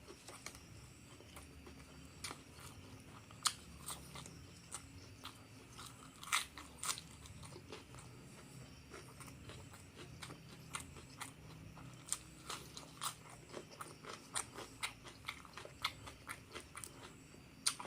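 Close-miked eating: chewing and crunching of crispy fried duck and rice, with irregular sharp crunches and mouth clicks.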